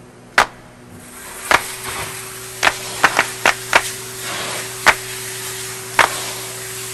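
Car-wash vacuum hose being handled: a steady suction hiss and hum build up about a second in, with a dozen or so sharp knocks at uneven spacing as the ribbed hose and its end are moved and dragged.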